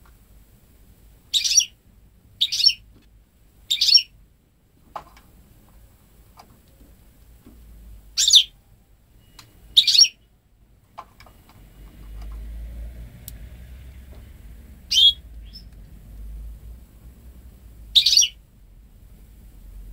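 Goldfinch × canary hybrid (mule) giving short, sharp high-pitched chirps: seven single calls, three close together near the start, then spaced a few seconds apart.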